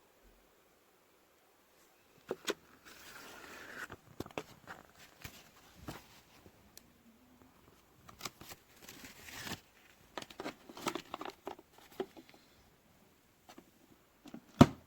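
Handling noises: scattered clicks and knocks with patches of rustling, and one sharper, louder knock near the end.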